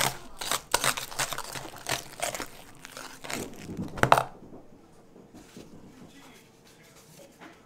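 Wire whisk beating thick mashed potatoes in a bowl: a rapid, irregular run of strokes against the mash and the bowl, stopping about four seconds in after one last loud stroke.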